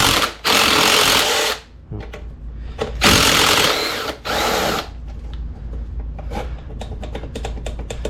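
Cordless power tool run in three short bursts, spinning out bolts, followed by light metallic clinks of parts and tools being handled.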